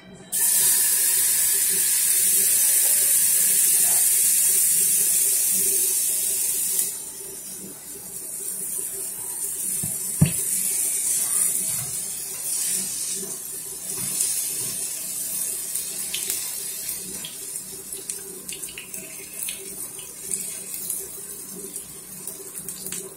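Zucchini pancake batter sizzling in hot oil in a nonstick frying pan. The sizzle starts loud as the batter goes in and settles to a quieter crackle after about seven seconds, with light spoon scrapes and taps on the pan as the batter is spread, one sharper tap about ten seconds in.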